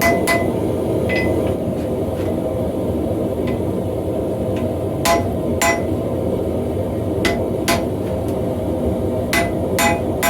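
Hand hammer striking hot steel on an anvil to set a forge weld in an axe head, each blow ringing, the strong blows mostly in pairs about half a second apart with lighter taps between. A gas forge burner makes a steady roar underneath.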